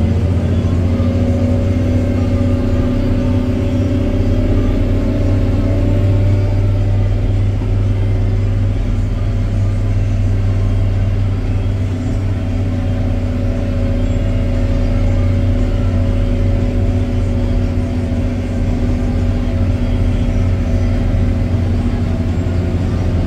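MAN six-cylinder diesel of a 2007 Fendt 920 Vario TMS tractor running steadily at road speed, heard inside the cab, at roughly 1,800–1,950 rpm. Its deep drone holds nearly level, easing slightly in pitch over the stretch.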